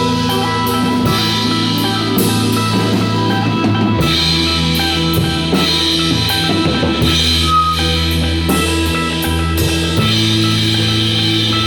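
Instrumental psychedelic rock: drum kit, guitar and bass playing together, the chords changing about four seconds in and again near ten seconds.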